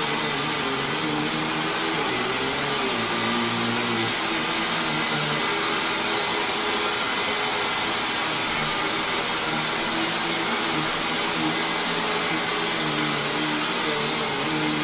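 Hoover WindTunnel Lite upright vacuum cleaner running steadily, a constant rush of air with a low motor hum that wavers slightly in pitch.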